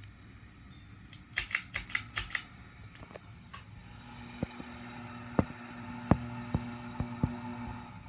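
Harbor Breeze Whitestar ceiling fan motor running without its blade arms: a steady low hum that grows louder about four seconds in. There is a quick run of about six clicks around a second and a half in, and half a dozen sharper single ticks through the second half.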